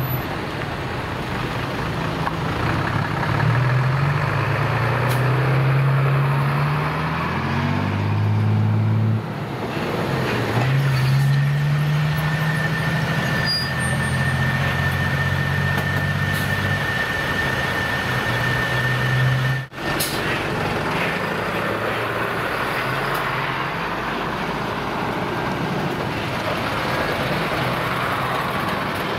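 Heavy truck diesel engine pulling away and accelerating through the gears: the engine note climbs, falls with a gear change about nine seconds in, then climbs and holds again. The sound breaks off for an instant about two-thirds of the way through.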